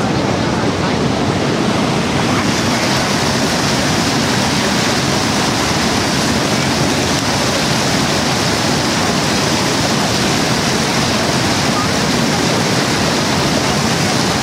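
Steady roar of Niagara Falls: an even, unbroken rush of falling water.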